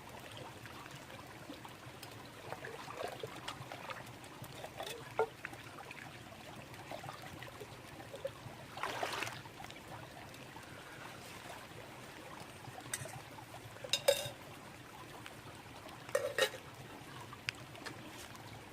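Small babbling brook running steadily, with a few short knocks and clatters from camping gear being packed away, the sharpest about 14 seconds in.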